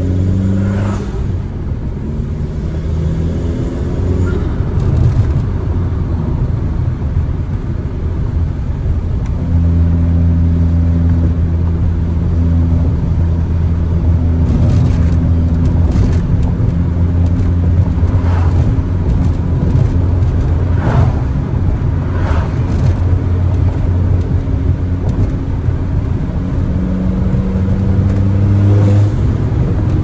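Turbocharged Volkswagen four-cylinder engine and exhaust, with the downpipe cutout open, heard from inside the cabin while driving. The engine drones steadily for long stretches, with a few shifts in pitch as speed and gears change.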